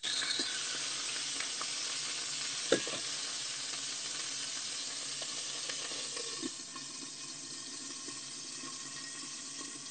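Food frying in a pan: a steady sizzling hiss that eases slightly after about six seconds, with one sharp knock about three seconds in.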